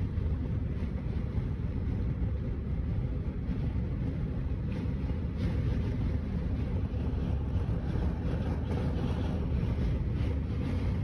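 Car driving at steady speed: a constant low rumble of road and wind noise from inside the moving car.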